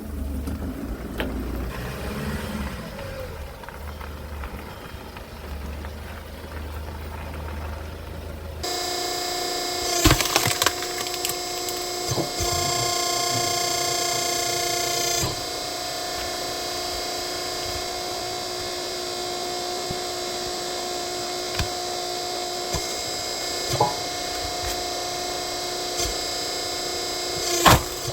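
Hydraulic log splitter at work: a low rumble gives way about a third of the way in to a steady high whine from its pump under load, while logs crack and split with sharp snaps, loudest soon after the whine starts and again near the end.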